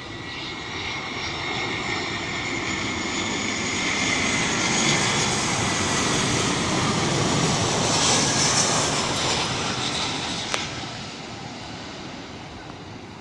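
Airbus A320 jet on landing approach passing by: its engine noise, with a high whine, swells for several seconds, peaks, then fades as it moves away. A single sharp click sounds late on.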